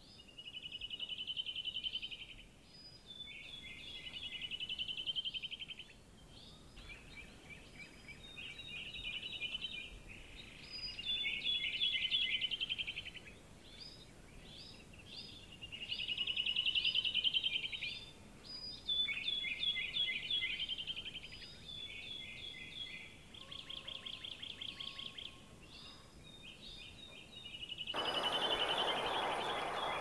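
A songbird sings the same short trilled phrase over and over, each phrase a second or two long, with brief pauses between. About two seconds before the end, a steady rushing noise comes in.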